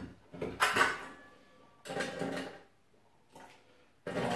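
Ice cubes clattering as they are taken from a metal ice bucket and dropped into a metal cocktail shaker tin, in three bursts: a sharp one about a second in with a brief metallic ring, another around two seconds in, and a longer run of clinks near the end.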